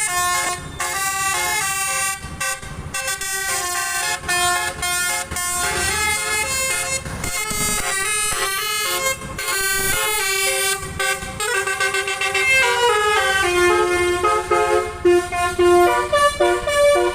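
Indonesian bus "telolet" multi-tone horn playing a quick tune of short stepped notes, the notes changing several times a second, over a low engine rumble. Near the end the tune drops to lower notes and gets louder.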